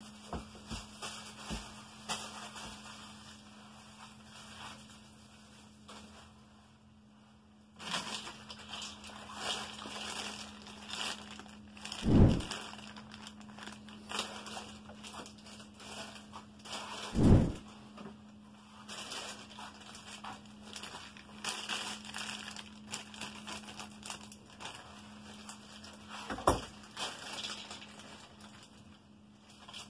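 Plastic packaging crinkling and crackling as a bag of bicycle brake levers is handled and opened, with two loud dull thumps in the middle and another near the end, over a faint steady low hum.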